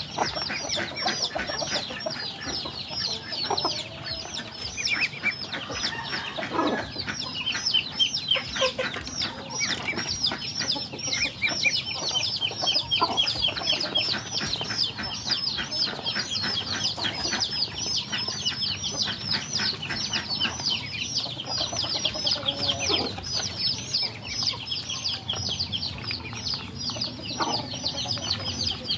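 A group of ducklings peeping nonstop while feeding, a dense run of quick, high peeps, several a second.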